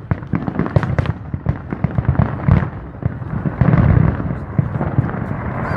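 Fireworks display: a rapid, irregular series of bangs and booms over a continuous rumble, with a dense cluster of loud booms about two-thirds of the way through.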